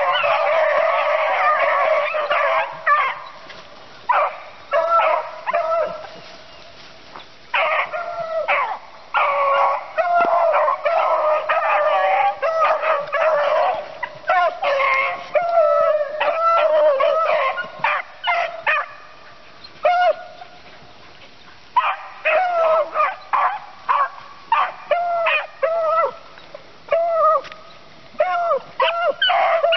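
A pack of beagles in full cry on a rabbit's trail: many hound voices overlapping in barks and drawn-out bawls. The chorus thins to a few voices twice, about three seconds in and again about twenty seconds in, then swells back.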